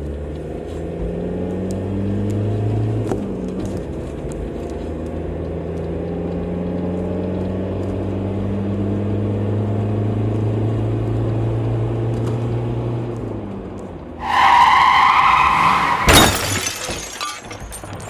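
A car engine runs steadily and then fades a little. About fourteen seconds in, tyres screech loudly for about two seconds, and the screech ends in a single loud crash followed by shattering glass and falling debris: a car crash.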